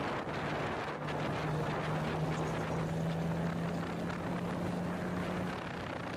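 Motorcycle engine running at road speed with wind rushing over the microphone; its steady hum climbs slightly in pitch, then fades out near the end.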